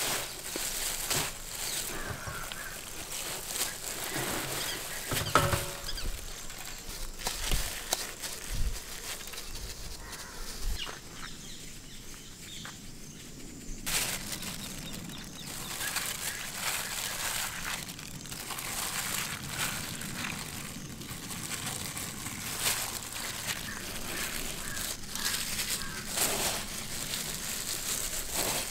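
Dry bread crumbs rustling and crunching as potato patties are pressed and turned in them by hand, in irregular scratchy strokes, with a quieter stretch of a few seconds near the middle.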